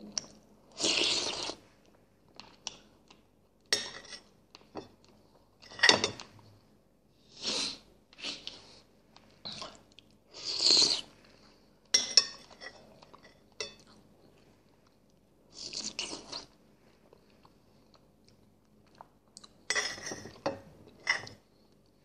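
Close-miked eating sounds: a man chewing and slurping spoonfuls of boiled potato and chicken in broth, in separate bursts every couple of seconds with quiet gaps between, and a spoon now and then clinking on the dish.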